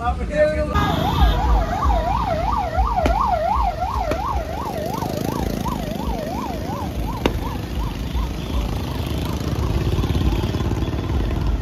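An electronic siren warbling quickly up and down, about two or three sweeps a second, that fades away after about seven seconds, over a steady low rumble.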